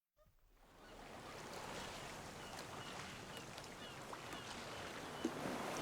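Faint outdoor ambience fading in: a steady, soft hiss of background noise with small birds chirping now and then.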